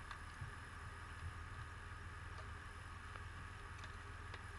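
Steady low hum of an idling engine, with a few faint ticks.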